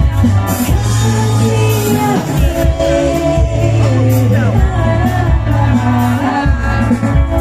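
Live band playing a song with singing over a steady, heavy low bass.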